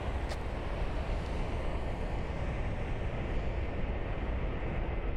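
Steady low rumble of jet engines from an airliner taking off.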